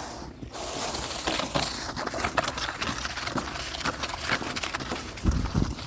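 Footsteps crunching through snow: a quick, irregular run of short crisp steps, with a couple of low thuds near the end.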